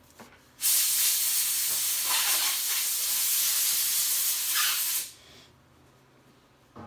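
A loud, steady hiss of pressurised gas jetting from a nozzle. It starts abruptly about half a second in and stops about five seconds in.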